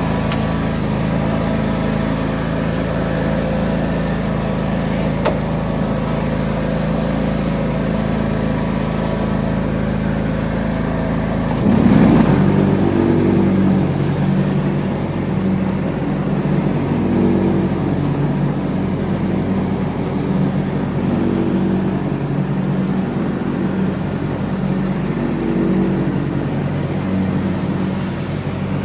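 John Deere X304 lawn tractor engine running steadily; about twelve seconds in it surges briefly, the loudest moment, and after that its note wavers unevenly.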